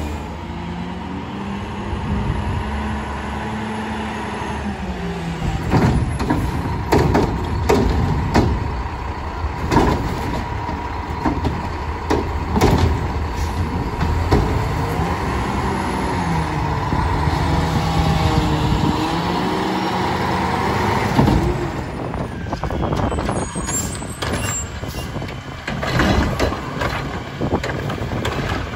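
Garbage trucks at work, their diesel engines running and revving up and down under hydraulic load. Repeated sharp bangs and clatters come from about six to thirteen seconds in and again near the end, typical of carts and cans being dumped into the hopper.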